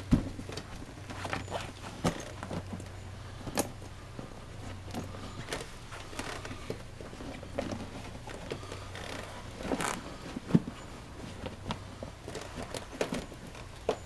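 A rubber Servus buckle overshoe being handled and pulled on over a leather work boot: scattered scuffs, clicks and knocks, with its metal buckles clinking. The sharpest knock comes about ten and a half seconds in.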